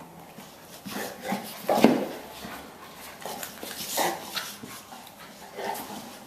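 A Bullmastiff and a Rottweiler puppy play-fighting, giving a few short separate dog vocal sounds, the loudest about two seconds in.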